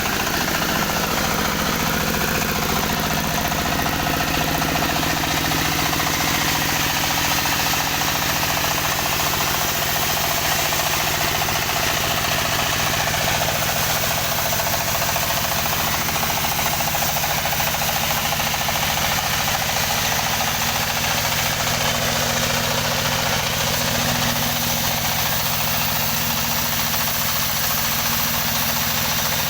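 Engine of a wood saw running steadily at an even speed, with no revving up or down.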